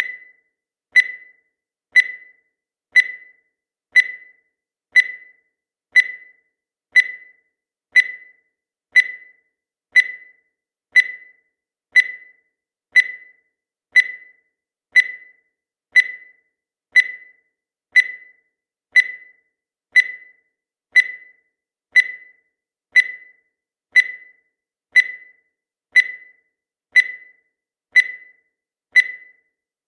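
Countdown timer sound effect: a short high-pitched beep once every second, each one fading quickly, in a steady even rhythm.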